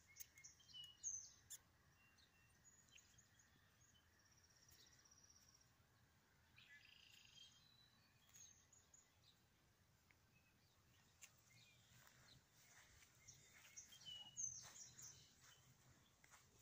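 Near silence, with faint, short, high-pitched chirps scattered through it, the clearest about a second in and near the end.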